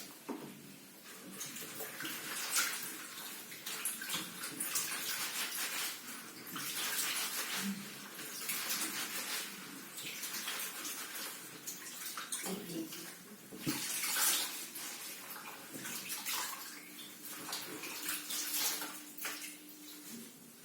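Water running and splashing in a sink as vegetables are washed by hand, the splashing swelling and dropping unevenly.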